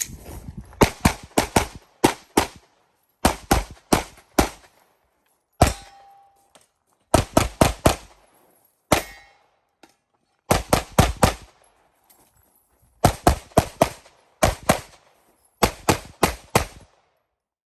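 Pistol fired in quick strings of two to five shots with short pauses between, a competition course of fire, the shooting stopping about a second before the end. Twice a short metallic ring follows a shot, typical of a steel target being hit.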